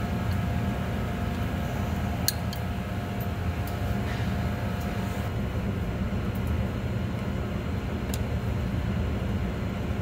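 Steady low mechanical hum of background machinery or ventilation, with a few faint, brief metallic clicks as a small cotter pin is worked into the neutral safety switch linkage by hand.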